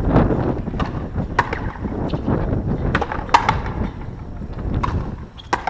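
Frontenis rally: sharp knocks of the rubber ball struck by rackets and smacking the fronton wall, about one every second or two, over a low wind rumble on the microphone.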